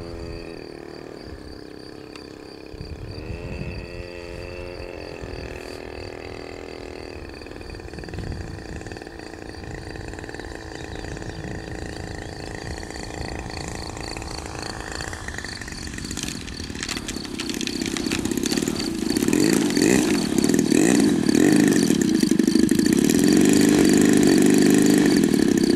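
RCGF 26cc single-cylinder two-stroke gas engine of an RC Pitts Special biplane running at low throttle as it lands, with a short rise and fall in pitch a few seconds in. From about 16 seconds in it grows much louder and rougher as the plane comes close.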